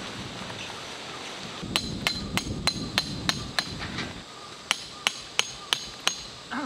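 Tent peg being driven in with a hammer: two runs of quick, ringing strikes, about three a second, seven and then five after a short pause.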